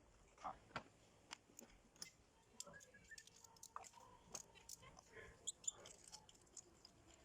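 Faint, scattered clicks and light taps at irregular intervals: hand tools and engine parts being handled while a spark plug is removed.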